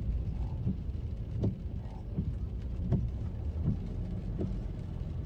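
Car driving in heavy rain: a steady low road and engine rumble with a few faint taps.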